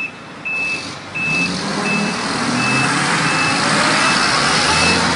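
Truck back-up alarm beeping steadily, about one beep every 0.7 s. About a second in, heavy diesel engine and vehicle noise swells up under it as a stuck concrete pump truck is dragged free by a Ford 6.4 L Power Stroke pickup.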